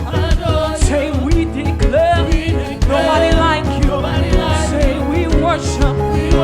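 Live gospel praise music: voices singing over a band with bass and a steady drum beat.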